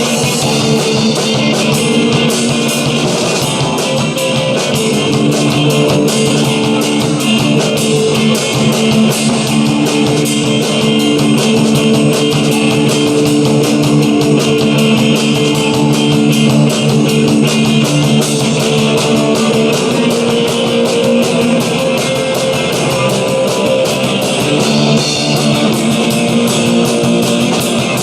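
Rock music with guitar and drum kit: held guitar chords over a steady drum beat, playing on without a break.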